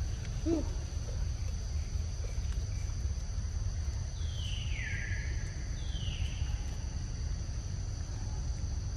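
Steady high insect trilling over a constant low rumble. Two falling high calls break in about four and six seconds in, and a brief low squeak comes near the start.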